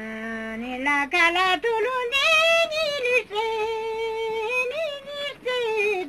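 An elderly woman singing a Ladakhi folk song unaccompanied, her single voice moving through quick wavering ornaments and then holding a long steady note in the middle, with short breaks for breath.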